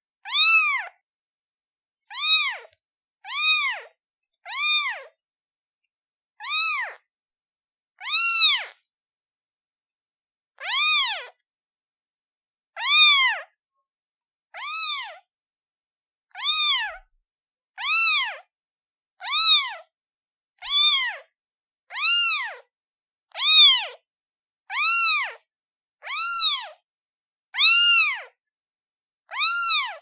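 One-day-old kitten meowing over and over, calling for its mother: about nineteen short high-pitched meows, each rising and then falling in pitch, one every second or two, with dead silence between them.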